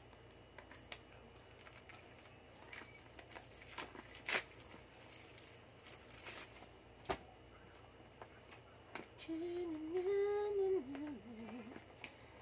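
Plastic wrapping crinkling and light taps and clicks as a phone box is handled and unwrapped, then a person humming a few wavering notes near the end.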